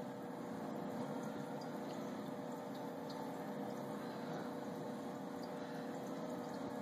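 Aquarium filter pump running: steady water trickle over a constant low hum.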